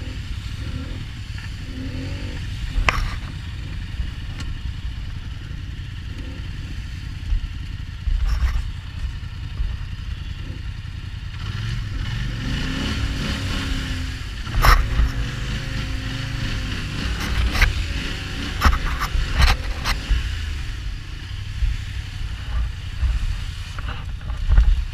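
Off-road vehicle engine running over rough ground, its pitch rising and falling a little past halfway, with several sharp knocks and clatters, most of them in the second half.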